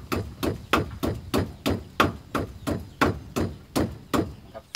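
Long kitchen knife chopping steadily on a round wooden chopping block, about three strokes a second, mincing grilled dried fish fine; the strokes grow weaker near the end.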